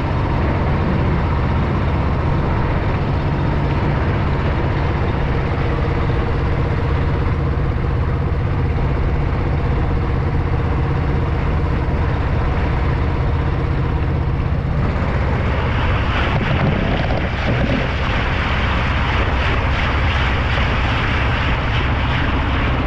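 Boat engine running steadily with a low drone. About two-thirds of the way through, a brighter hissing rush joins it.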